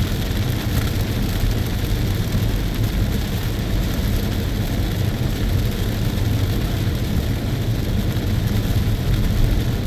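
Steady in-car road noise from a car driving in heavy rain: a low drone of engine and tyres with an even hiss of wet road and rain.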